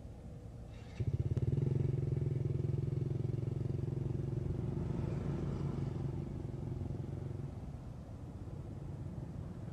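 A motorcycle engine running, coming in suddenly about a second in with a steady low hum, then easing off after about six seconds.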